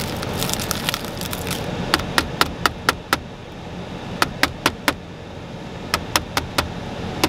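Claw hammer striking the cracked glass of a car's dashboard touchscreen radio: three quick runs of sharp knocks, about four a second, starting about two seconds in.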